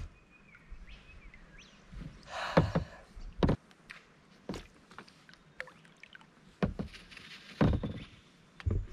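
Scattered knocks and clicks against a plastic kayak, with a short rustle about two and a half seconds in, as a small sooty grunter caught on treble hooks is held and unhooked.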